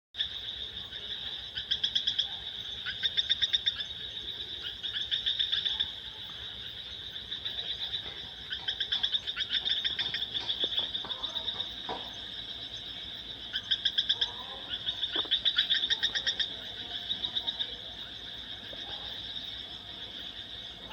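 Animal calls: bouts of rapid pulsed trilling, each about a second long, repeat every few seconds over a steady high-pitched chorus.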